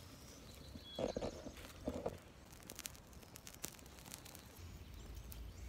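Dry twigs and brush kindling being handled over a freshly lit tinder bundle: two short rustles about one and two seconds in, then a string of sharp little clicks and snaps.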